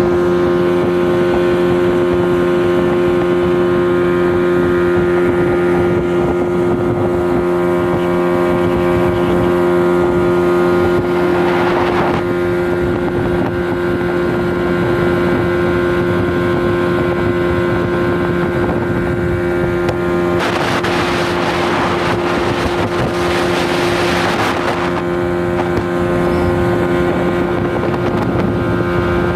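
Yamaha 15 hp outboard motor running steadily at speed on a test run, a constant even drone. Water and wind rush past the hull throughout, with louder surges of rushing hiss about twelve seconds in and again for a few seconds past the twenty-second mark.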